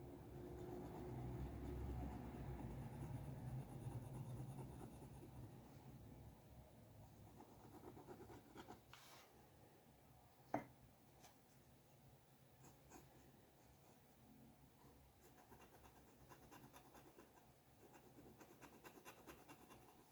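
Faint scratching and rubbing of a drawing tool moving over paper, busiest in the first few seconds, with a single sharp tap about ten and a half seconds in.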